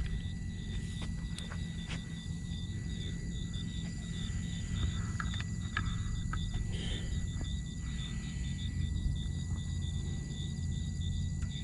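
Crickets chirping steadily at about three chirps a second, over a low rumble.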